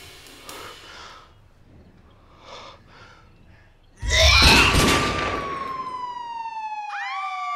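A TV crime show's title sting: after a few quiet seconds, a sudden loud dramatic hit about four seconds in, followed by a long, slowly falling tone and a police-siren wail near the end.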